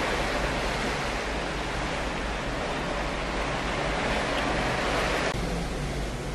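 Steady rush of ocean waves and wind from a ship at sea, turning duller about five seconds in.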